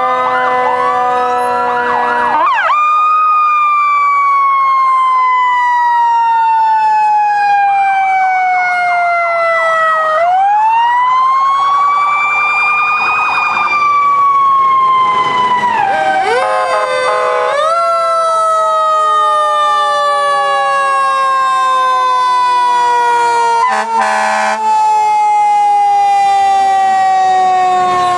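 Fire truck sirens wailing with several sirens overlapping. The main one slowly falls in pitch, winds back up about ten seconds in, then falls slowly again. A brief horn-like blast sounds near the end.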